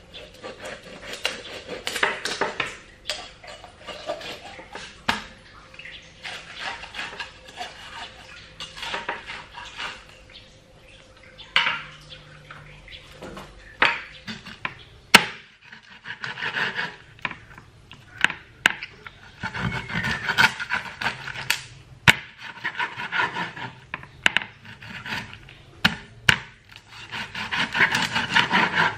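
Meat cleaver cutting up a raw whole chicken on a wooden cutting board: stretches of scraping and cutting through the meat, broken by irregular sharp knocks of the blade striking the board.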